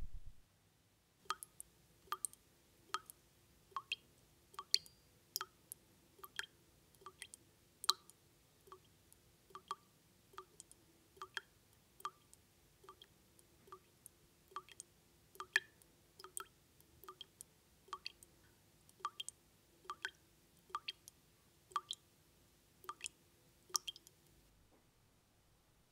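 Water dripping from a kitchen tap in a steady rhythm, a drop a little more than once a second, each one a short plip with a clear pitch. The dripping stops near the end.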